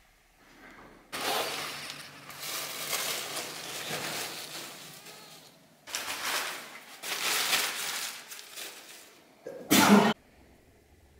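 Paper and kindling being crumpled and arranged by hand in an open fireplace grate: rustling in two long stretches, then a short, loud rasp near the end.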